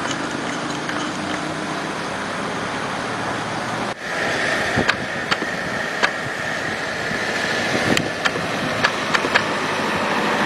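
Outdoor roadside noise of road traffic and vehicle engines, steady and even. About four seconds in the sound changes and gets a little brighter, with scattered sharp clicks; the level slowly rises toward the end.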